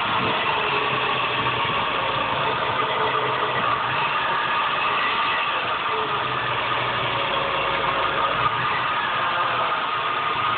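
Porsche 944 Turbo's turbocharged four-cylinder engine running warm, with a steady whirring whine over it. The whine appears only once the engine is fully warm, and the owner thinks it may be coming from the turbo.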